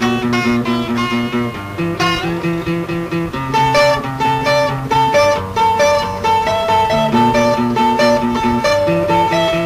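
Instrumental passage of a lo-fi Peruvian underground rock song: guitars chug a riff of repeated chords in a steady pulse. A higher melodic line of repeated notes comes in about three and a half seconds in.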